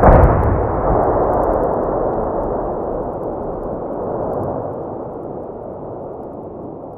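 Cannon shot: a second sharp blast right at the start, then a long rolling rumble that fades slowly.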